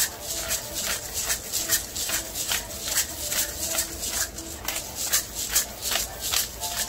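A seasoning shaker shaken over a frying pan of sliced sausage and onions, its grains rattling in quick even strokes about two or three times a second.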